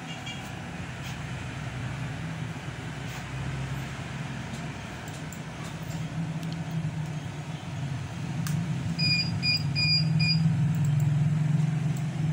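A steady low rumble that grows louder in the second half, with a quick run of about five short high beeps around nine seconds in.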